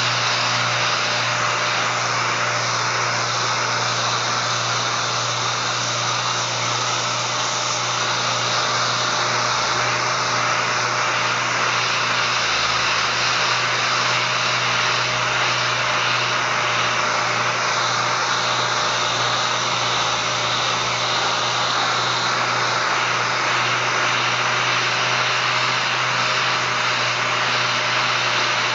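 3M 6-inch random orbital air sander running steadily while sanding a solid surface countertop: a continuous air hiss and pad scrubbing over a steady hum.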